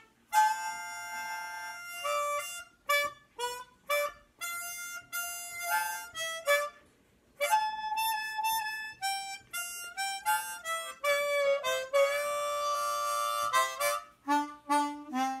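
East Top Forerunner chromatic harmonica, a valveless model, played blues-style in third position without the slide: a run of short and held single notes, some bent downward or upward in pitch, with a held chord about twelve seconds in.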